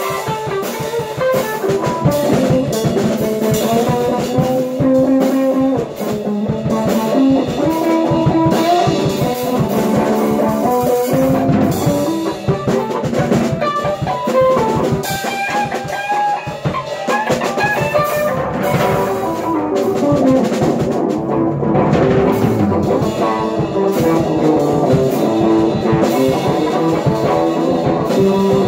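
Electric guitar and drum kit playing together in a loose live jam: guitar lines and chords over a steady drum beat.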